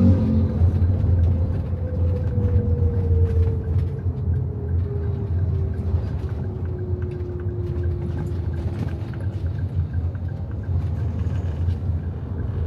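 Engine and road noise heard from inside the cabin of a moving car: a steady low rumble, with a faint whine that slowly drops in pitch.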